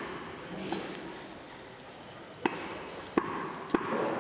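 A butcher's cleaver chopping goat meat on a wooden block: three sharp knocks in the second half, each less than a second apart.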